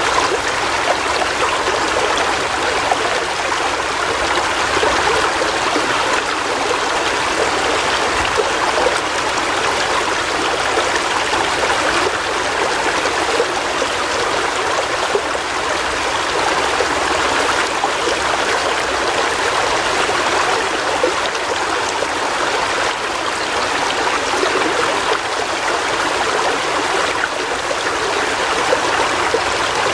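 River water flowing and splashing over rocks, a steady rushing with a light trickling.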